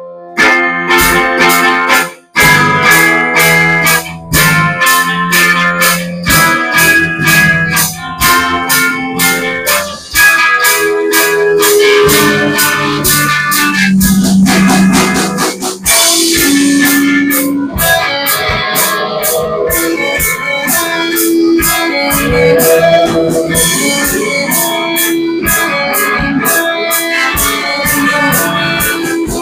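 Live rock music: guitar over a drum kit with a steady beat, the full band coming in loudly about half a second in after a quiet keyboard passage.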